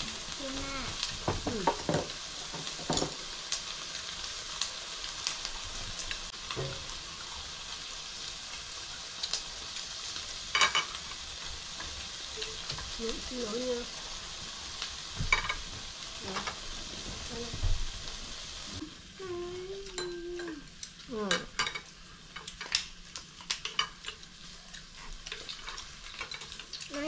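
Sliced meat sizzling on a tabletop grill pan, with chopsticks clicking against the pan as the pieces are turned. The sizzle gets quieter about two-thirds of the way through, leaving mostly clicks.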